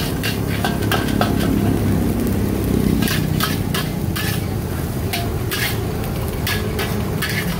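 Metal spatula striking and scraping a wok in irregular clangs, about two to three a second, as fried rice is stir-fried, over a steady low rumble.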